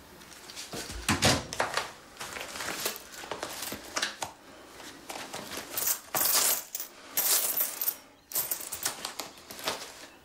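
Coins clinking and jingling in a wallet as fingers rummage through it, in a run of short metallic clicks and rattles.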